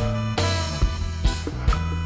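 Upbeat background music with a walking bass line, a steady drum beat and guitar.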